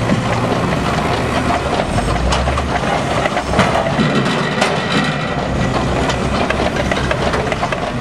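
Diesel engine of a Liebherr 904 wheeled log handler working steadily as its hydraulic grapple swings a bundle of logs and drops them into its bunk, with scattered knocks and clatter of wood on wood and steel.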